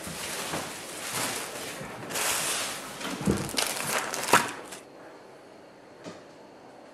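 Plastic wrapping rustling and crinkling while the PC case is handled, with a couple of sharp knocks, for about the first five seconds.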